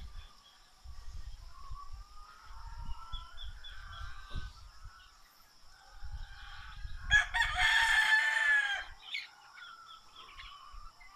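A rooster crows once, about seven seconds in, one loud call of nearly two seconds. Small birds chirp softly around it.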